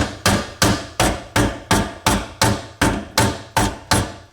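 A hammer beats steadily on a garbage disposal's metal mounting ring, about three sharp ringing blows a second, stopping near the end. This is hammering the mounting assembly round to lock and tighten it, in place of the disposal wrench.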